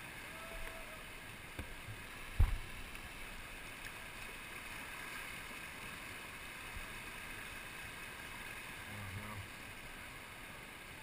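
Steady rush of a whitewater rapid, an even hiss of fast water, with a single sharp low thump about two and a half seconds in.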